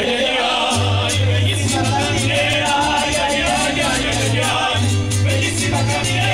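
Mariachi band playing a son: strummed guitars and vihuela keeping a fast rhythm over repeated low guitarrón bass notes, with voices singing.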